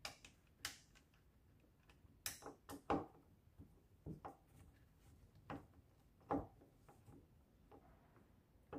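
Faint, scattered clicks and knocks of a screwdriver and the plastic valve housing as screws are worked in to fasten a new water inlet valve on a washing machine; the loudest knocks come about three and six seconds in.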